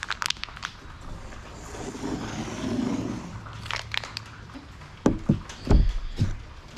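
Light handling clicks, then several sharp wooden knocks and a heavy thump as a wooden trim board is set down and pressed into place on the sign frame, the loudest thump about six seconds in.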